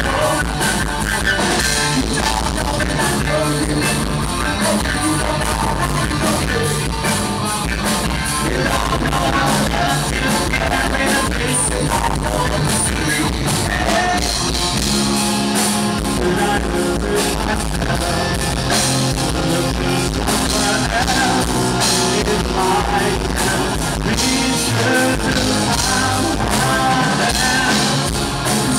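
Rock band playing live, a loud, continuous full-band passage of the song.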